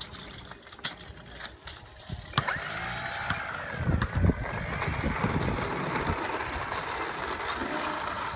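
Radio-controlled aerobatic model airplane's motor and propeller coming up to power about two seconds in and running loud and steady with a thin high whine, as the plane starts its takeoff roll. A few light clicks come before it.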